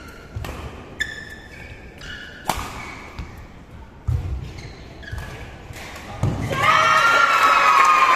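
Badminton rally: several sharp racket strikes on the shuttlecock, with short squeaks of shoes on the court between them. About six seconds in, loud shouting and cheering break out at the end of the rally, and this becomes the loudest sound.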